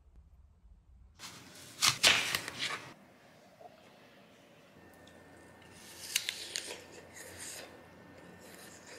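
Short bursts of rustling and crackling. The loudest cluster comes about two seconds in, and a second group of crackles comes around six to seven seconds.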